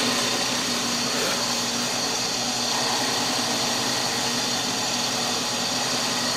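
Drill press running steadily with a cutter climb-milling a maple-and-ebony banjo bridge blank held in a jig: an even machine whir with a constant low tone.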